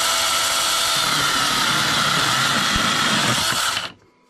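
ValueMax 20V cordless electric mini chainsaw with a 4-inch bar running at full speed while cutting through a wooden beam: a steady whine with the rasp of the chain in the wood. It stops suddenly about four seconds in as the cut finishes.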